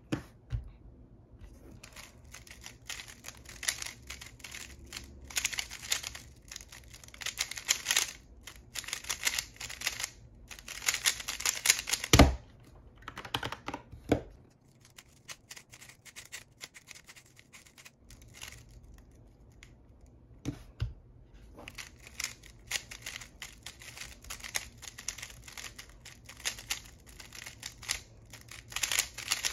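Fast, clattering clicks of a 3x3 speedcube's layers being turned during a timed solve, ending about twelve seconds in with one sharp knock as the cube is set down and the timer stopped. After a few quieter seconds the cube is turned again in rapid bursts of clicks.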